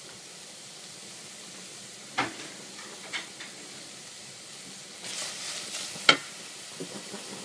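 Sliced onion and red bell pepper sizzling softly in a stainless steel saucepan, with a couple of sharp knocks about two and three seconds in. Near the end a wooden spatula stirs the vegetables, scraping through them and striking the pan once with a loud knock.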